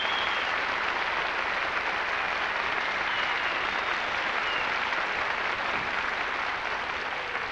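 A studio audience of children and adults applauding steadily, easing off a little near the end.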